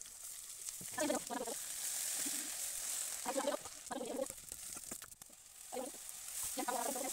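Hot oil sizzling steadily in a kadai as turmeric-coated silver carp slices fry. Over it, a hen clucks in short runs about every second or two.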